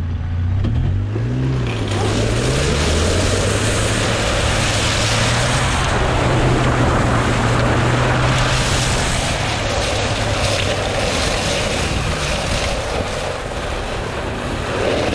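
Fiat Panda 4x4 driving fast through a shallow river and over gravel, heard from a camera beside its front wheel: water spraying off the tyre and wind rushing over the microphone from about two seconds in, over a steady low drone.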